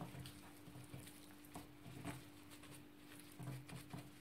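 Faint, irregular soft pats and squishes of plastic-gloved hands kneading a minced chicken mixture on a plate, over a steady low hum.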